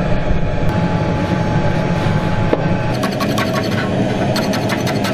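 Steady drone of the melting furnace's blower. From about three seconds in, quick scraping and rasping strokes are laid over it.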